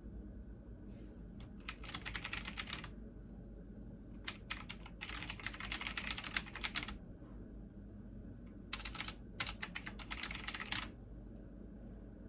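Computer keyboard typing in quick bursts of keystrokes, about four runs with short pauses between, over a steady low hum.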